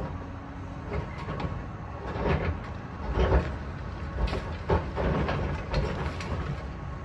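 Heavy demolition machinery working rubble: a steady low rumble with irregular clanks and knocks, the loudest coming from about two seconds in.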